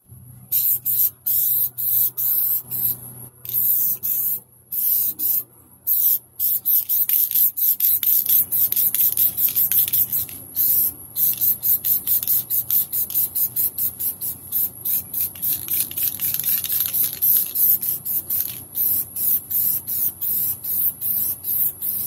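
Aerosol spray-paint can hissing in many short, quick bursts as paint goes onto a metal tool chest, the bursts running closer together through the middle.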